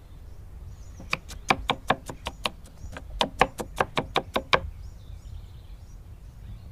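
Knife chopping green chillies on a wooden cutting board: two quick runs of sharp knocks, about six a second, with a short pause between them.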